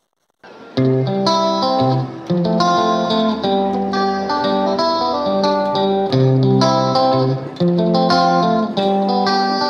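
Background music: a plucked guitar tune, starting about half a second in.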